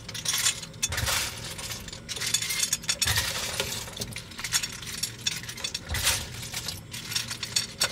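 Metal ladle scraping and clinking against an aluminium pan, with repeated irregular clinks, as it stirs and scoops through a pan of stewing broth.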